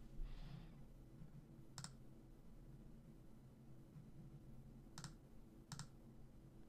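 Computer mouse clicking: three short sharp clicks, one about two seconds in and two close together near the end, over a faint low steady hum.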